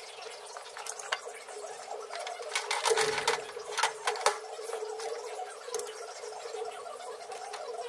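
A steady hum with a cluster of clicks and clatter from about two and a half to four and a half seconds in, as welding leads and gear are handled at the welder cart.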